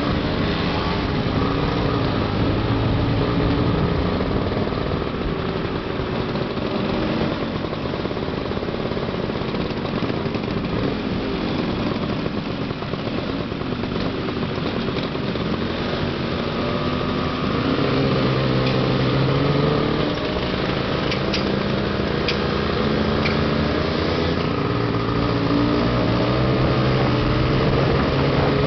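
Several classic Lambretta scooters' two-stroke single-cylinder engines running as they ride in a group, their pitch rising and falling with the throttle and gear changes, over a steady rush of wind and road noise.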